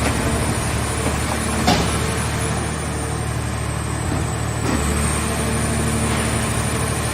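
Car baler's engine and hydraulic power unit running steadily with a thin high whine, and one sharp knock just under two seconds in.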